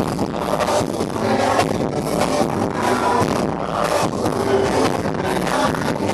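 Live band music played loudly over a concert PA, with a steady beat and guitar.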